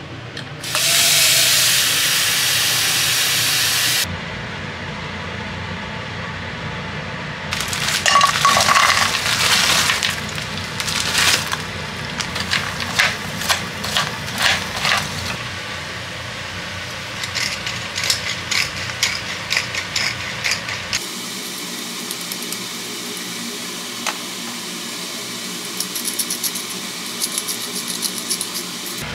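Cooking at the stove: a few seconds of rushing water at the sink, then tongs clicking and scraping against a frying pan as shrimp and seafood are stirred, and a wooden pepper mill grinding near the end.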